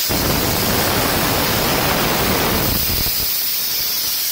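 Leftover nitrogen hissing out of a just-disconnected nitrogen charge hose as it depressurizes: the residual charge in the hose venting, not the Jeep's onboard nitrogen cylinder. A loud, steady hiss whose lower part thins out from about three seconds in.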